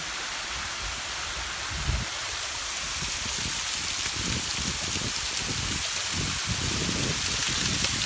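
Water of a small waterfall pouring down a rock face close by, a steady hiss of falling and splashing water that grows a little louder from about two seconds in; the fall is running thin after a dry morning. A brief low thump about two seconds in.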